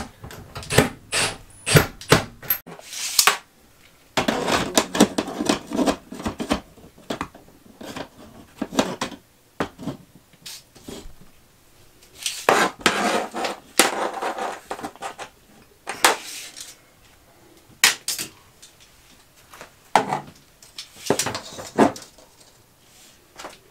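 Handling noises from hand tools being worked around plastic ceiling vent fittings: repeated sharp clicks and knocks, with a few longer stretches of scraping and rattling.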